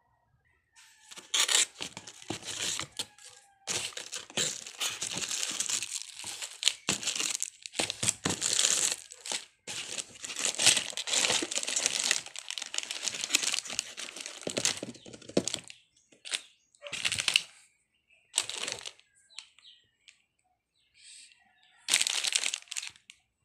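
Clear plastic accessory bags crinkling and rustling as they are handled and pulled apart, in irregular bursts with short pauses, sparser near the end.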